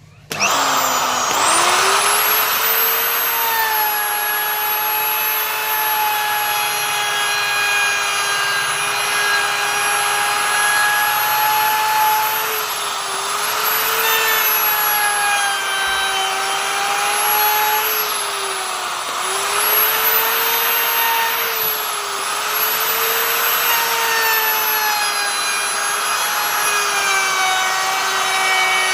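Electric wood router spinning up to speed and running with a high, steady whine; its pitch sags and recovers several times as the bit bites into the wood.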